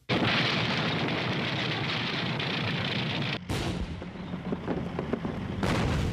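Battle sounds of artillery guns firing and shells exploding: a dense, continuous din that starts abruptly, with sharp blasts standing out about halfway through and again near the end.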